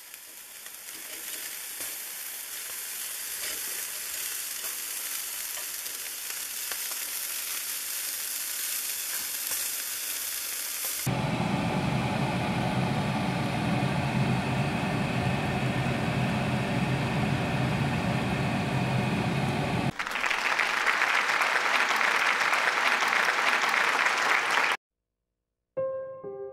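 Meat sizzling on a hot grill, then food frying in a pan, in separate clips that change abruptly. After a short gap, soft piano notes begin near the end.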